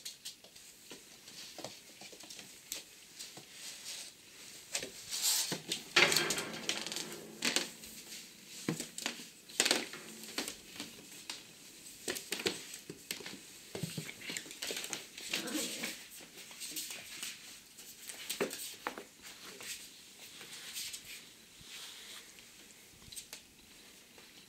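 A papillon's claws clicking and scrabbling on a hard tile and wooden floor as it scuffles and tussles at a socked foot, in irregular bursts that are busiest a few seconds in.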